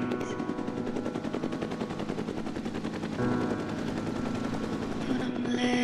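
Helicopter hovering close overhead during a hoist: fast, steady rotor-blade chop, with music faintly underneath.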